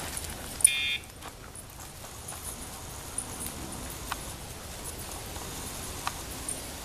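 A sharp click, then a short electronic buzz from the Dogtra remote collar's sound indicator, lasting about a third of a second. The buzz signals that the vibrating pager is being felt by the dog. A few faint ticks follow later.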